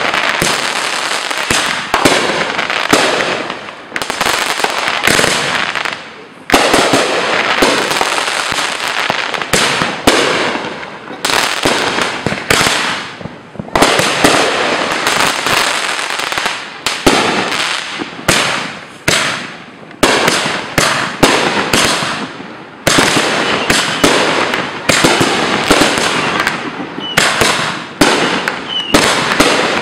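Aerial fireworks going off in rapid succession, one burst after another with crackling tails. Two brief rising whistles come near the end.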